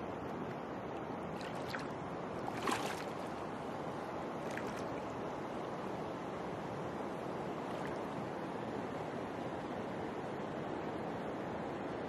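Steady rush of shallow river water around wading legs, with a few small splashes as hands and a wicker basket move through the water, the loudest about two and a half seconds in.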